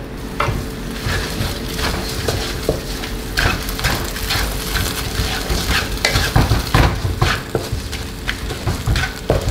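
Freshly added chopped red chilies sizzling in hot oil in a wok, a spatula stirring and scraping against the pan in quick, irregular strokes.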